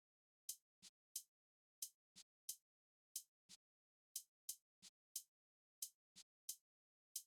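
Sparse percussive background music: short, sharp clicky hits in a repeating rhythm, about three a second in groups with short gaps, and silence between the hits.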